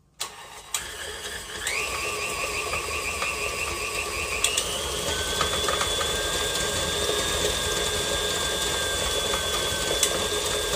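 KitchenAid stand mixer switched on and running, beating butter and sugar in its steel bowl. The motor's whine steps up in pitch twice, about a second and a half in and again about four and a half seconds in, as the speed is raised.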